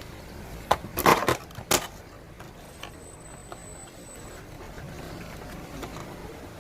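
A quick cluster of sharp clicks and clacks, about four in all in the first two seconds, as a toy BB pistol is handled.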